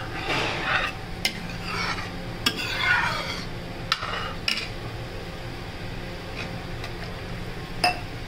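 A metal spoon stirring and scraping through thin curry gravy in a metal kadai, with a few sharp clicks of the spoon against the pan. The scraping is busiest in the first half and eases off later.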